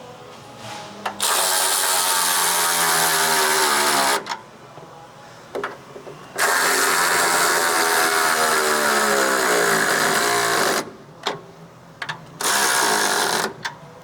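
A power tool runs in three bursts, a longer pair and a short one near the end. Its pitch falls during each run as the tool loads up, typical of driving fasteners tight.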